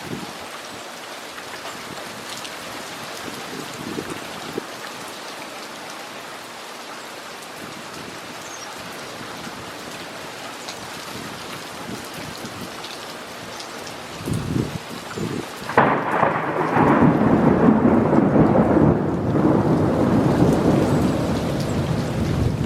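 Steady rain hissing. About two-thirds of the way through, thunder breaks in with a sudden loud clap and rolls on as a long, loud rumble over the rain.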